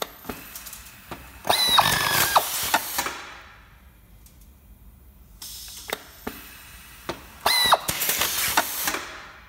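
Motorized spindle on the automatic working head of an Elumatec RMZ 4000 sash assembly station, running twice in bursts of about a second and a half with a steady whine, as it works on the aluminium sash profile. Short mechanical clicks come between the two runs.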